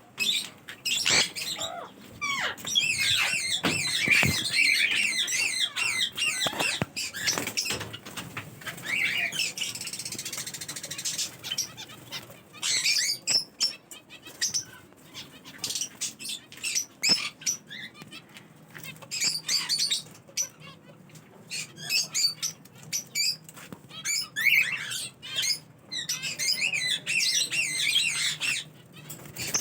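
Pet parrots chirping and squawking in irregular bursts of quick, high calls, with fluttering wings.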